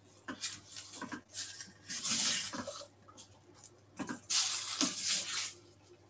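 Water splashing in two short bursts, about a second each, with a few light knocks of kitchen utensils.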